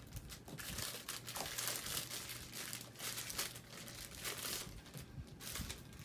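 Slime being squished and stretched by hand, with irregular crinkly crackling.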